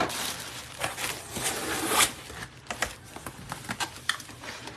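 Plastic inflatable air-cushion packing pillows crinkling and rustling as a hand pushes through them. The crackle is busiest in the first couple of seconds and thins out after that.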